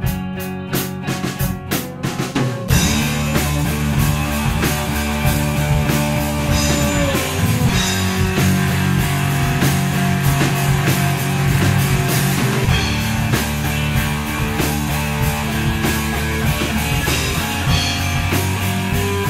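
Rock music: a guitar plays evenly spaced chords, then the full band with drums and bass comes in about three seconds in and plays on steadily.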